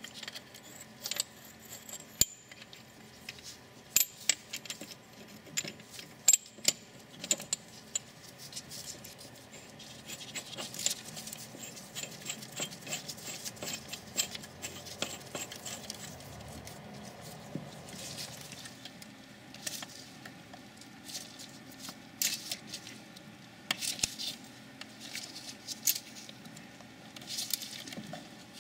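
Light metallic clicks, clinks and scrapes of a brake rewind tool being fitted to a rear brake caliper piston and wound, screwing the piston back into the caliper. The clicks come irregularly, a few at a time, with no steady rhythm.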